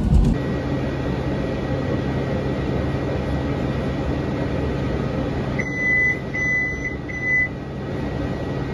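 Interior of a tram car: a steady running hum with a thin, faint high whine, and about six seconds in three short electronic beeps at one pitch, one after another.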